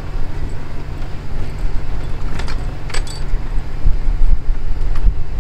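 Car driving over a rough unpaved road, heard from inside the cabin: a steady low rumble of tyres and suspension with loose things rattling, and a couple of sharp clicks about halfway through.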